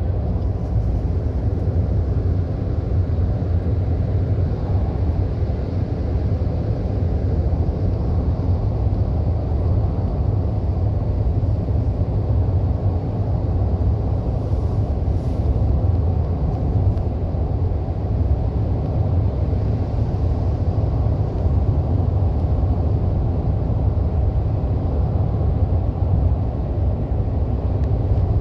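Steady low rumble of a car driving through a road tunnel, heard from inside the car: tyre and engine noise with the surrounding tunnel traffic, unchanging throughout.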